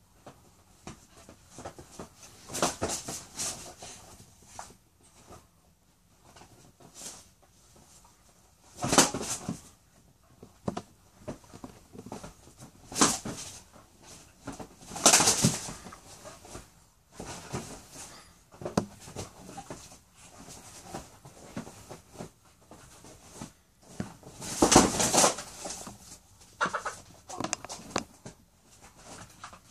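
A dog and a rooster scuffling on a leather couch: irregular bursts of rustling and scrabbling, several loud ones with quieter gaps between.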